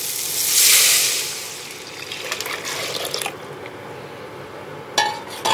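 Thin besan (gram-flour) batter poured into a steel pot of hot mustard oil with turmeric and chopped green chillies. It makes a loud sizzling hiss as it hits the oil, swelling about half a second in and dying away over the next two seconds as the pot fills. Two short metallic clinks come near the end.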